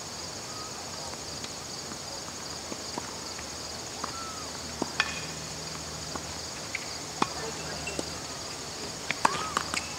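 Steady, finely pulsing high-pitched chorus of insects such as crickets or katydids from the surrounding trees, with a few sharp knocks about halfway through and a quick cluster of them near the end.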